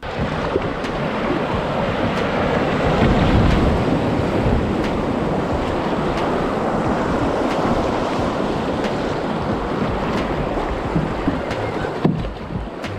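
Rushing, splashing whitewater of a small river rapid heard from a kayak running through it. The rush eases about twelve seconds in as the kayak comes out into calmer water.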